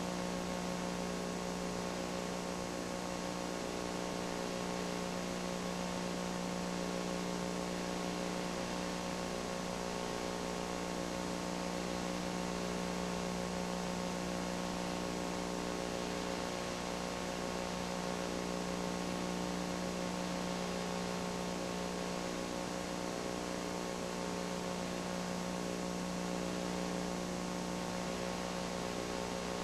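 Steady electrical mains hum, several tones stacked together, over a constant hiss, with no other sound.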